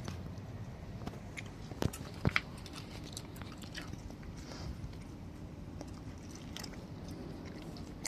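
A cat crunching dry cat food: irregular crisp chewing clicks, with a few sharper ones about two seconds in.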